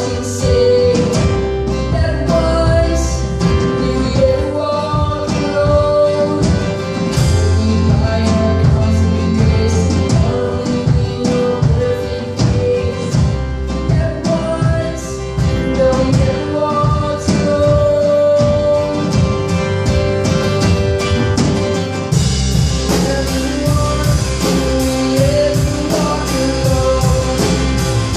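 A small live band plays a worship song: drum kit, electric bass and acoustic guitar, with a young male lead vocalist singing. About two-thirds of the way through, the drums and bass fill out, with a steady run of cymbal hits.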